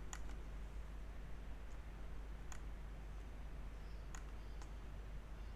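Computer mouse clicking a few times: a quick double click at the start, then single clicks about two and a half and four seconds in, with one more shortly after, over a low steady hum.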